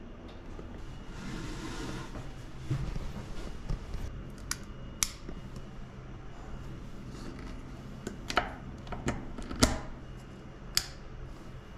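Sharp plastic clicks and rattles as a table lamp's power cord, plug and inline switch are handled and plugged into a desk outlet, over a steady low room hum. Several separate clicks, the loudest about two-thirds of the way through.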